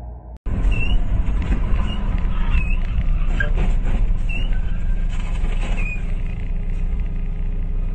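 Dash cam audio from inside a moving vehicle: steady engine and road noise with a strong low rumble, starting suddenly about half a second in, with several short high squeaks scattered through it.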